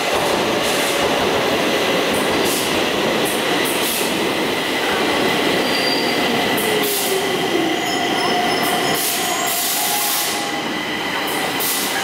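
Stockholm metro train pulling into the station and slowing to a stop alongside the platform. A steady high squeal runs throughout, a tone falls in pitch about two-thirds of the way through, and short bursts of hiss come and go.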